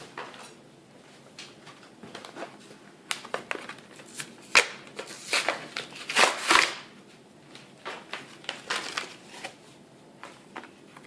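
Tyre plug repair kit being unpacked by hand: plastic packaging rustling and crinkling with irregular clicks and knocks, busiest in the middle.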